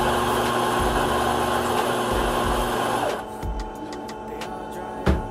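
Electric espresso grinder grinding coffee beans into a portafilter held in its fork, with a steady loud whirr that cuts off suddenly about three seconds in. A couple of sharp knocks follow near the end.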